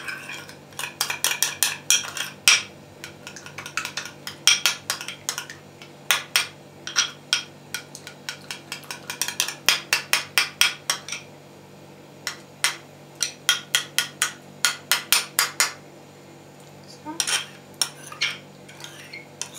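Spoon beating egg yolk and sour cream in a ceramic bowl: quick runs of clinks against the bowl, broken by short pauses.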